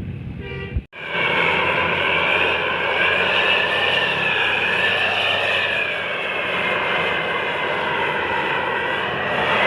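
Bus's multi-tone 'Pakistan'-style telolet air horn sounding continuously, several high tones wavering slowly together. It starts loud just under a second in, after a brief break.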